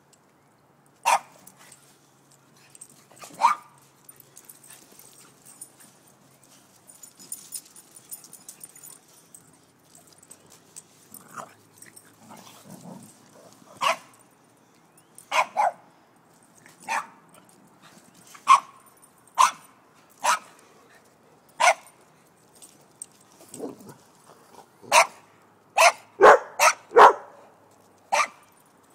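A dog barking in play: single short, sharp barks spaced out at first, then coming in a quick run near the end.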